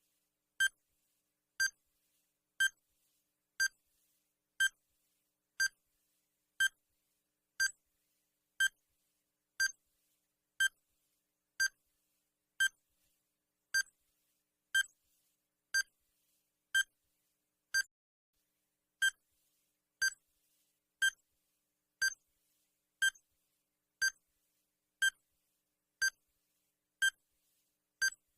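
Countdown timer sound effect: a short electronic beep once a second, steady and even.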